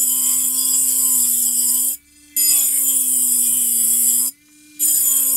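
Culiau Customizer cordless rechargeable engraving pen drill running at its highest speed: a steady motor whine with a hiss over it. It cuts out twice for a fraction of a second and starts again.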